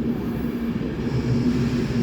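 Train at the platform: a steady low rumble with a steady hum, and a faint high sound joining about a second in.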